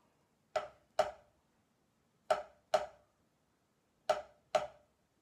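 Single drumstick playing slow right-hand double strokes on a rubber practice pad: three pairs of sharp taps, the two strokes in each pair about half a second apart, with a pause of over a second between pairs.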